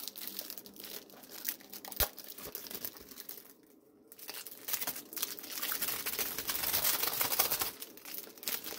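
Thin clear plastic sleeve crinkling as a slim keyboard is pulled out of it, with one sharp tap about two seconds in and a busier stretch of crinkling in the second half.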